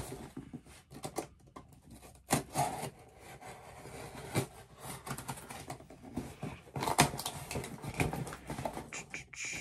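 Cardboard shipping box being cut and pried open by hand: irregular scraping, rustling and tapping of cardboard and packing tape, with a few sharper knocks.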